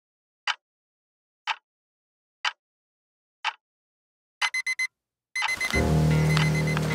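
Alarm-clock sound effect: four ticks about a second apart, then a quick run of four electronic beeps. Music with a steady low note starts right after the beeps.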